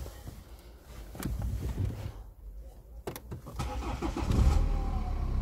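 A few sharp clicks, then a BMW car engine starts about four seconds in, flares briefly and settles into a steady idle.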